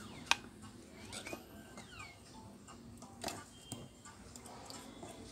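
Multimeter test probes tapping and clicking against a graphics card board: a sharp click about a third of a second in, another just after three seconds, and lighter ticks between. Faint high falling chirps sound in the background.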